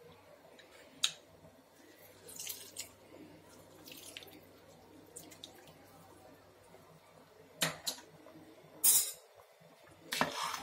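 Lemon squeezed in a hand-held metal lemon press over a pot, juice dripping into the liquid, with a sharp click about a second in and a few short scrapes. Louder metal clatters come in the last three seconds.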